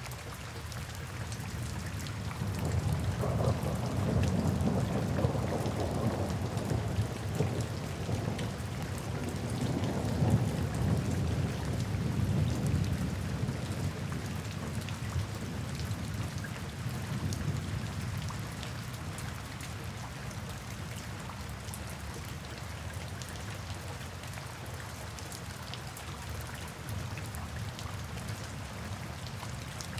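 Steady rain falling, with a long deep rumble of rolling thunder that swells a couple of seconds in and fades away over the next dozen seconds or so.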